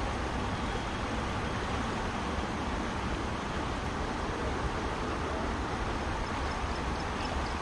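Steady rushing of a fast-flowing river, with a low rumble underneath and a few faint high ticks near the end.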